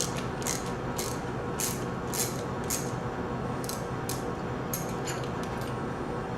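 Socket wrench ratcheting in short clicking bursts, about two a second, while loosening the lock nut that holds the impeller on the pump shaft, over a steady background hum.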